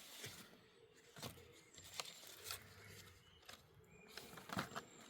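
Faint, scattered rustles and light knocks of movement among dumped household debris, a few separate short sounds with near quiet between them.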